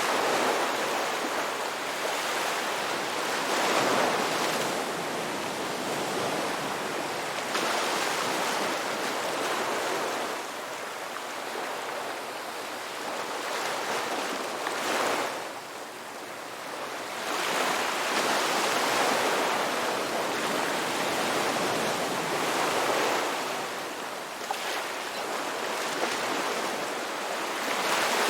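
Ocean waves breaking and washing up a beach, the surf swelling and easing every few seconds.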